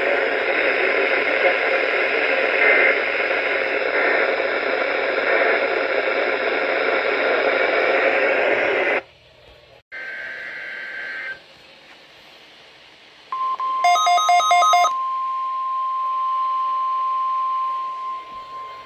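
Radio static hiss that cuts off about nine seconds in. After a short tone, a steady 1050 Hz NOAA Weather Radio warning alarm tone from station KEC63 starts about thirteen seconds in and holds through the rest, marking the weekly required test. For about a second a receiver's electronic alert beeping sounds over it.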